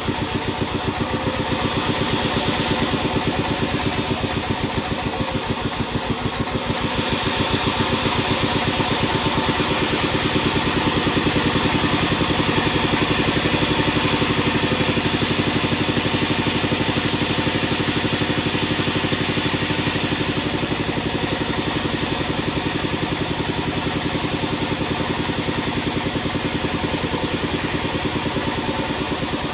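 Band sawmill and its drive engine running steadily with an even, fast pulsing throughout.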